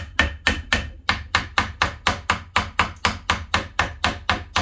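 Used diesel fuel lift pump on battery power clicking rapidly and evenly, about four clicks a second, over a low hum, without running up to speed: the pump is not working.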